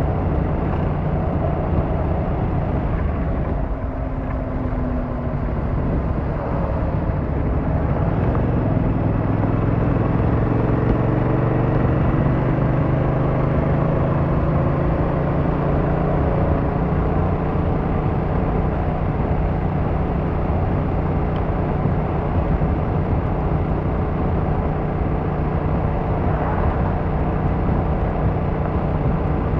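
Yamaha MT-07's 689cc inline-twin engine running under way, easing off about four seconds in, then its pitch rising as it pulls harder from about eight seconds and holding steady after that.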